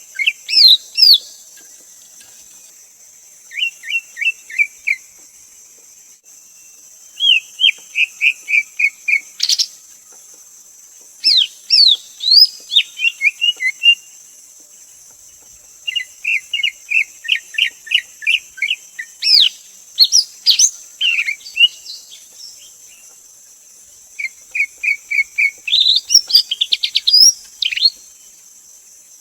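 Greater green leafbird singing: phrases of rapid repeated chirping notes mixed with quick rising and falling whistles, each phrase a second or two long with short pauses between. A steady high insect buzz runs underneath.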